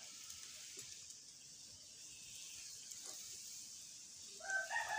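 Momos sizzling as they deep-fry in hot oil in an iron kadai, a steady hiss that grows a little toward the end. Near the end a rooster starts crowing, the loudest sound.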